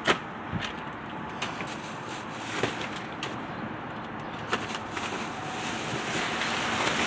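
Steady outdoor background hiss, with a few light clicks and rustles as a grabber pole prods at plastic trash bags and cardboard.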